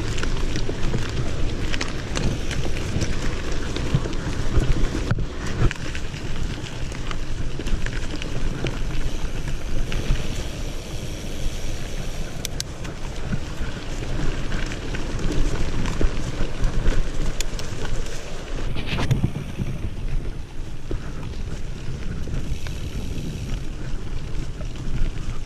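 Wind buffeting a GoPro's microphone on a moving mountain bike, with the tyres crunching over a gravel and dirt track and the bike rattling over the bumps.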